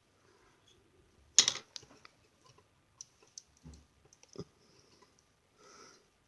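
Hard plastic parts of a 1/100 Gundam Barbatos Lupus model kit clicking and knocking as they are handled: one sharp clack about one and a half seconds in, then scattered lighter clicks and taps. The kit's hand keeps coming loose while it is made to grip its sword mace.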